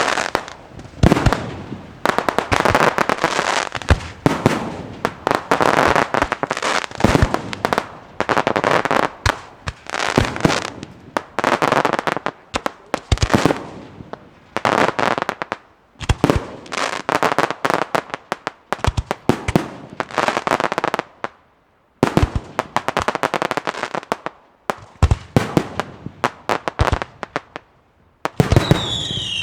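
Fireworks display: aerial shells bursting in rapid volleys of sharp bangs with crackling between them, in waves with brief lulls. Near the end, shrill whistles fall in pitch.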